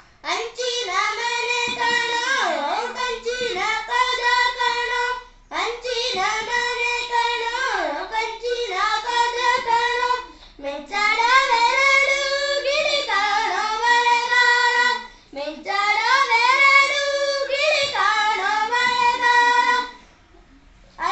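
A boy singing a Kannada folk song unaccompanied into a handheld karaoke microphone, in four long phrases with short breath pauses between them; he stops near the end.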